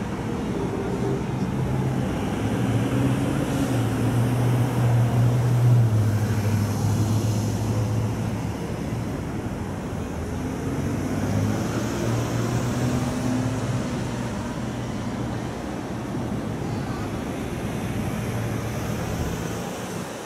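Fire engine pulling away through street traffic: its engine runs amid the traffic noise, with long low steady tones that come and go. The sound is loudest about six seconds in and fades near the end.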